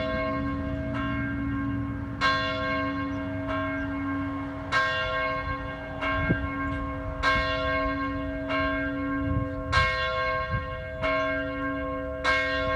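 A church bell tolling steadily, about one stroke every 1.25 seconds with louder and softer strokes alternating. Each stroke rings on into the next.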